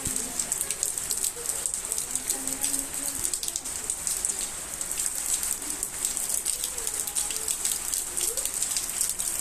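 Torrential rain falling: a steady, dense patter of many raindrops.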